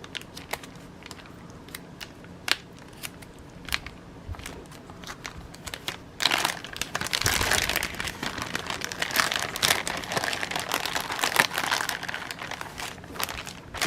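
Crinkling of the kit's small bags of beads and threads being handled: a few scattered small clicks at first, then steady crinkling from about six seconds in.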